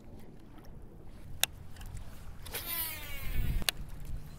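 Baitcasting reel's spool whirring as the line pays out on a cast, its pitch falling as the spool slows, ending in a sharp click. Wind and lapping water rumble underneath, with another click about a second and a half in.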